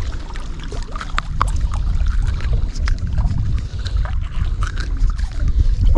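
Wind buffeting the microphone as a steady low rumble, with scattered small clicks and rustles from gloved hands handling a fish.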